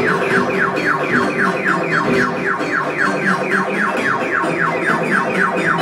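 Electronic soundtrack of a projection show: a rapid, even series of synthesized falling chirps, about five a second, over lower sustained electronic tones.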